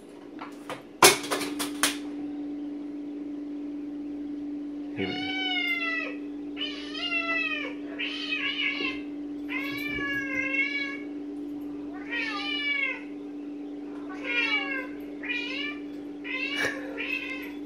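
Bengal cats meowing from a YouTube video played through a computer's speakers: a few sharp clicks about a second in, then repeated meows about once a second from about five seconds in, over a steady hum.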